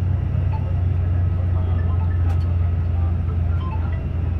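Steady low engine and road rumble inside a moving vehicle's cabin.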